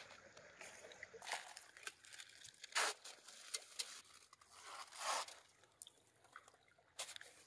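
Inflatable Explorer K2 kayak being handled and pushed off a rocky shore: its vinyl hull scrapes and rubs against the rock, with scattered crunches and clicks. There are two louder scrapes, about three and five seconds in.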